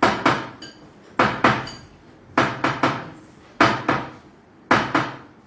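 Kitchenware knocking against a bowl and dishes: sharp strikes in clusters of two or three, about once a second. Some strikes carry a brief high metallic ring.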